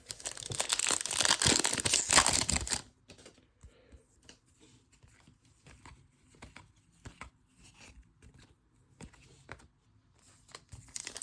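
A 2022 Panini Prizm Baseball trading-card pack wrapper being torn open and crinkled for about three seconds, then only light rustling and small ticks of cards being handled. Crinkling picks up again at the very end.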